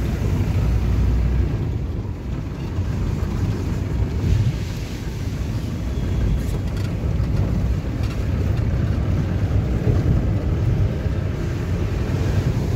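Steady low rumble of a vehicle driving, heard from inside the cabin.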